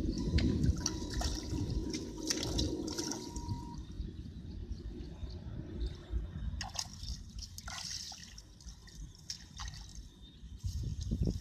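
Water sloshing and trickling, with scattered small knocks and clicks, easing off after about four seconds.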